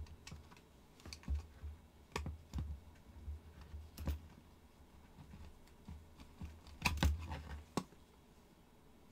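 Scattered light clicks and taps of small metal fittings and screws being handled and worked loose on an antique powder horn, with a brief cluster of clicks about seven seconds in.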